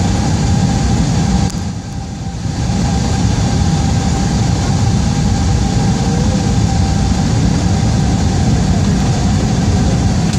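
Steady cabin noise of an Airbus A321 on approach: engine and airflow noise heard inside the cabin, with a steady hum running through it. The noise drops briefly about a second and a half in, then returns.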